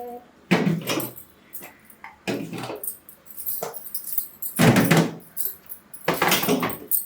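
Food storage containers being handled in a refrigerator: four short spells of knocking and rattling about a second or two apart as boxes are put back and the next one is taken out.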